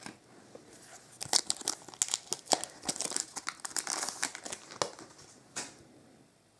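Shiny foil wrapper of a Topps Chrome trading-card pack being torn open and crinkled, a dense run of crackles that dies away after about five seconds.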